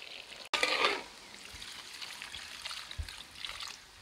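Spice mix in liquid poured from a steel bowl into a wide kadai of potatoes and peas over a wood fire: a loud splash about half a second in, then a quieter steady pour.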